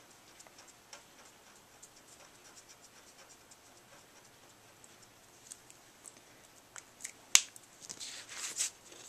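Faint ticks and light strokes of a Copic marker's medium broad tip dabbing on thick paper. About seven seconds in comes a single sharp click, followed by paper rustling as the sheet is handled near the end.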